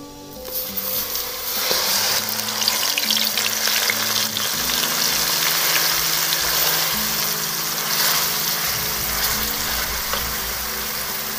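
Onion paste hitting hot oil with cumin seeds in a steel kadai: it sizzles up sharply about half a second in, then fries with a steady loud sizzle that eases a little near the end. Occasional scrapes of a steel slotted spoon stirring it in the pan.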